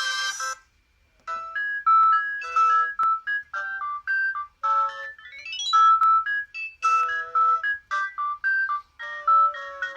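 Sagem my150X mobile phone playing its built-in ringtones: one tune ends on a held chord about half a second in, and after a short pause another begins, a quick melody of short bright notes with chords and a fast rising run about halfway through.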